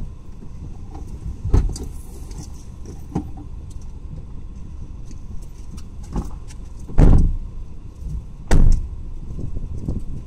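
Wind buffeting the microphone: a steady low rumble with three heavy gust thumps, about a second and a half in, around seven seconds in (the loudest, lasting about half a second) and again a second and a half later.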